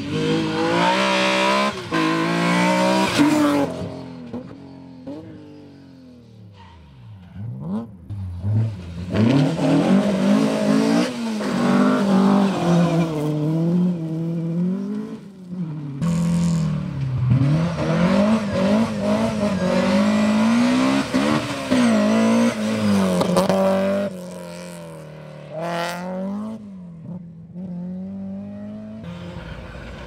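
Rally cars at speed one after another, engines revving high and dropping in pitch again and again through gear changes and lifts, with abrupt switches between cars and a quieter stretch about five seconds in as one fades. A Ford Escort rally car is heard mid-way and a BMW E30 near the end.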